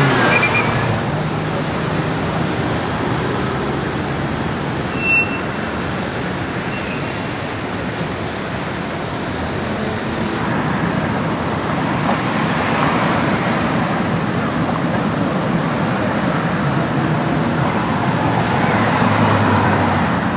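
City street traffic: cars, taxis and SUVs passing in a steady mix of engine and tyre noise, swelling louder near the end. A brief high-pitched beep about five seconds in.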